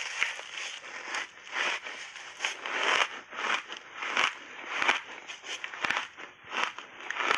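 Crunchy ice chunks coated in milk powder and matcha being bitten and chewed right at a clip-on microphone, a sharp crunch roughly once or twice a second.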